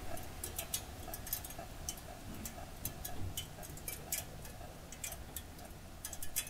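Soft, fairly regular ticking, a few ticks a second, over a faint low hum.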